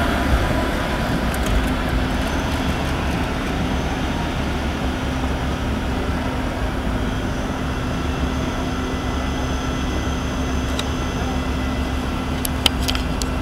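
Tram and street noise: a steady rumble with a low hum that comes in about a third of the way through, and a few sharp clicks near the end.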